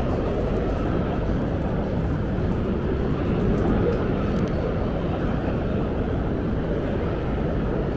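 Steady low rumble of a busy indoor exhibition hall: a dense wash of background noise with no single distinct event.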